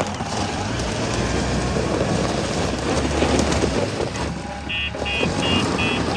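JCB 3DX backhoe loader working mud with its diesel engine running steadily. About three-quarters of the way through, a high electronic beep starts pulsing about three times a second, like a reversing alarm.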